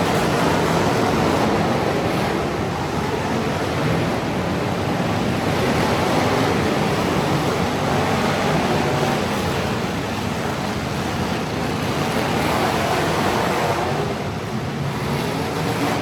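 Truck engines running, heard as a steady, loud rushing drone with no clear breaks.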